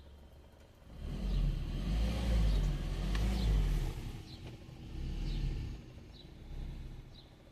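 A car drives past, its engine rumble and tyre noise swelling for about three seconds and then fading, followed by two fainter swells of passing traffic. Short high chirps repeat faintly throughout.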